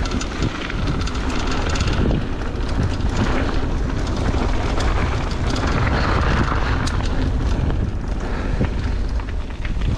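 Ragley Big Al mountain bike ridden fast over a dirt trail: constant wind rumble on the microphone and tyre noise, with many short clicks and clatters from the bike. The rider says the rattle sounds like something's broken and thinks a foam insert would sort it.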